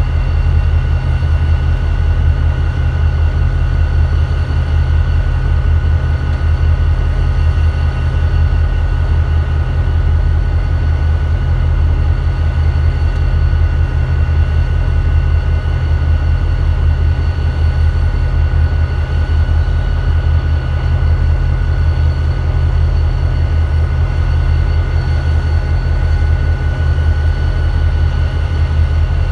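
EMD diesel locomotives idling: a steady deep rumble with a thin, steady whine above it.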